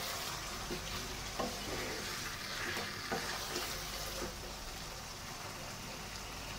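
Chicken pieces in a thick yogurt-and-spice masala sizzling in a nonstick wok while a wooden spatula stirs and scrapes them with short strokes. They are frying dry, with no water added. The stirring stops about four seconds in, and the steady sizzle goes on.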